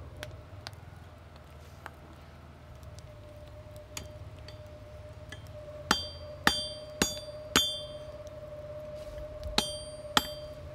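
Blacksmith's hammer striking the anvil, each blow with a bright metallic ring: four strikes about half a second apart starting about halfway through, then two more near the end. A steady whining hum runs underneath.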